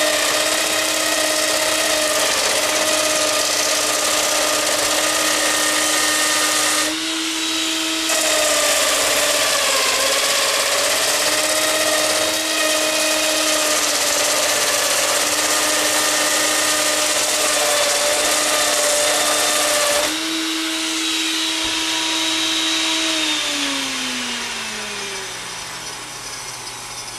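Router on a homemade router lathe running at speed and cutting a turning hardwood blank down round: a steady high whine under loud cutting noise. About twenty seconds in the cutting noise drops away, and a few seconds later the router is switched off and its whine falls as it spins down.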